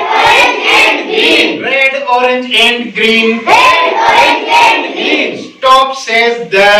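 A class of children chanting an English action poem in unison with their teacher. A single man's voice leads each line in a steady sing-song pitch, and the group of children answers it.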